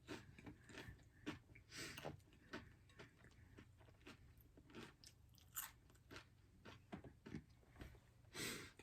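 Close-miked chewing of tacos: soft, irregular crunches and wet mouth clicks, spaced unevenly, with a longer crunch near the end.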